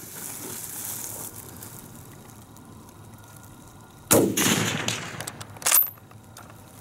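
A single rifle shot from a Schmidt-Rubin 1889 firing a GP90/23 reload, about four seconds in, dying away over about a second. A sharp metallic click follows about a second and a half later.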